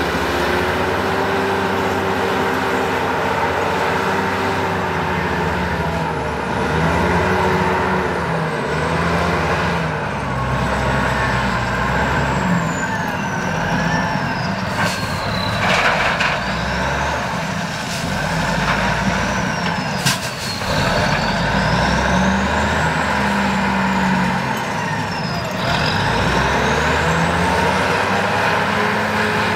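Clark Michigan 475B wheel loader's diesel engine working under load, its revs swinging up and down repeatedly with a high whine that falls and rises along with them. A couple of short sharp noises come midway, as the bucket tips its load into the dump truck.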